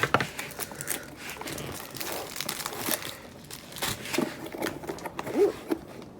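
Plastic packaging of a diamond painting kit crinkling and rustling as it is handled and opened, with irregular small clicks and crackles.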